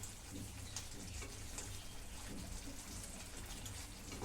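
Semolina upma cooking in a nonstick pan as the sooji soaks up the water: a faint steady sizzle with a few light clicks, over a low steady hum.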